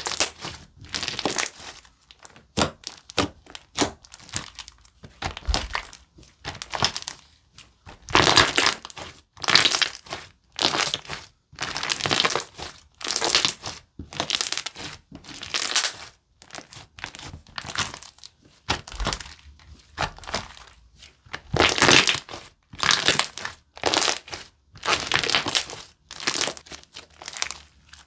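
Hands repeatedly squeezing, pressing and folding a thick amazon-type slime ('Red Bean Syubung Sandwich'). Each press gives a short burst of sticky, crackly noise, about one a second.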